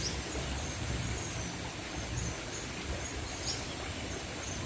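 Insects, crickets or cicadas, keeping up a steady high-pitched drone, with a few faint short chirps and a low rumble underneath.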